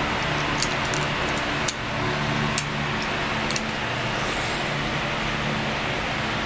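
Steady background rumble and hum, with a few faint plastic clicks as an action camera is fitted to a helmet chin mount.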